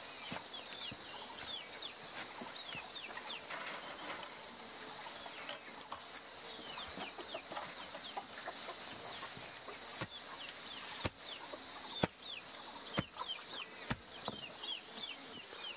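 Chickens calling: many short, high, falling peeps and clucks. In the second half there are a few sharp knocks, about one a second.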